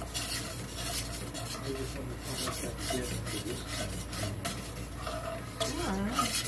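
A metal fork scraping and stirring across the bottom of a stainless steel skillet of milk gravy in repeated rasping strokes. It is lifting the browned bits off the pan bottom into the gravy.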